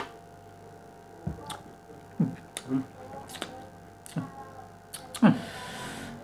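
Scattered sharp mouth clicks and lip smacks from tasting vape vapour, with a few short low hums in between, over a faint steady hum.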